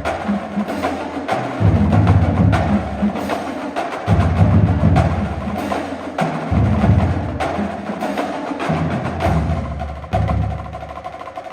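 High school marching drumline playing a backbeat groove: rapid snare and tenor strokes over tuned bass drums stepping between low pitches.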